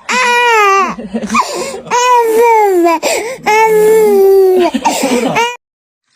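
A baby crying in loud, drawn-out wails of about a second each, most of them falling in pitch, stopping abruptly about five and a half seconds in.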